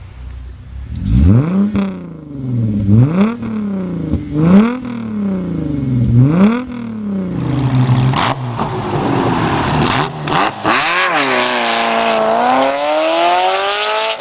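Maserati Quattroporte engine and exhaust revved in three quick blips, the pitch climbing and falling each time, with sharp cracks near the peaks. Then a steadier, louder engine note that dips and climbs again near the end, as when the car pulls away under power.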